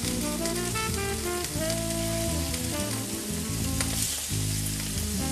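Venison chops sizzling in a hot frying pan as they are laid in, under background music with a melody of short stepped notes.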